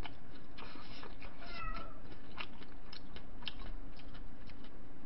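A house cat meows once, briefly, about one and a half seconds in. Scattered light clicks sound over a steady background hiss.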